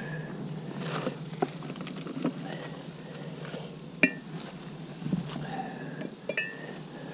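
Metal beehive tool clinking and knocking against the hive boxes and frames as a honeybee hive is opened and worked, several sharp clinks with the loudest about four seconds in. A low steady hum of bees runs under it.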